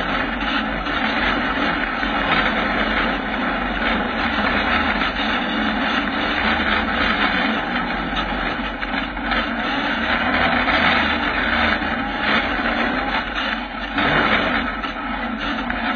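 Kawasaki ZX-9R inline-four engine of a homemade 4x4 buggy running at low speed while the buggy crawls over rock, heard from a camera mounted on the buggy's frame. The engine sound is a steady, noisy drone with small swells.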